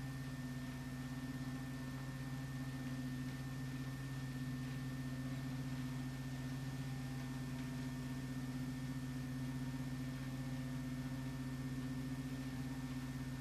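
A steady low hum with a faint high-pitched whine above it, unchanging throughout.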